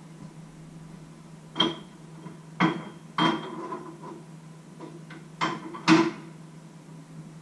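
Kitchenware knocking at the stove: five sharp knocks, some with a short ring, the loudest near the end, over a steady low hum.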